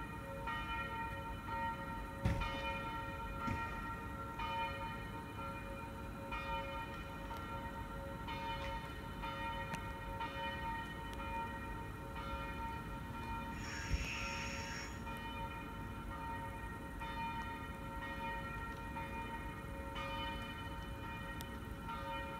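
Church bells ringing on and on, the strokes overlapping into a steady ring. A short, higher-pitched sound cuts in briefly about two-thirds of the way through.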